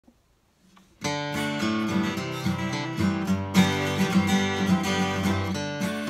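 Furch D32 SM dreadnought acoustic guitar strummed, playing improvised chords. The playing starts about a second in, with a hard strum about three and a half seconds in.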